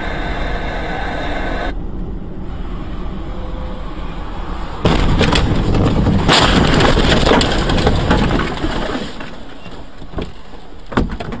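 Car cabin road noise on a dashcam. About five seconds in, a loud rushing, rumbling noise with rapid knocks lasts about three seconds as a car slides off the icy highway into the snowy verge. Two sharp knocks come near the end.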